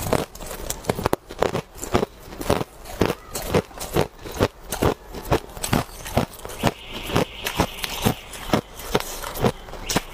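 Hard clear ice being chewed, a steady run of sharp crunches about two a second.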